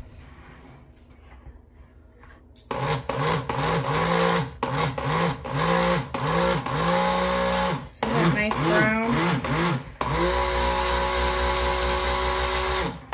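Stick blender pulsed in short bursts in a tub of soap batter, its motor whirring up and winding down about a dozen times after a few quiet seconds, then run steadily for about three seconds near the end. It is buzzing raw cold-process soap batter that is thickening up.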